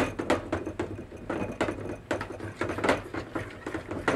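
Irregular metallic clicking and scraping of a copper sauté pan being worked on the stove as butter is swirled into a reduced sauce (mounting with butter).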